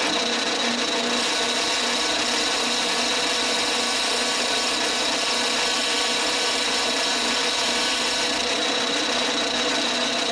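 Mini lathe running steadily with a steady high whine, its spindle turning a brass tube while a boring bar takes a pass through the bore.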